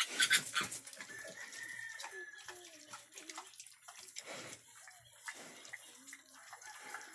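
Several drawn-out, high animal calls whose pitch wavers and falls, the longest held for about a second and a half, after a short loud burst of noise at the start.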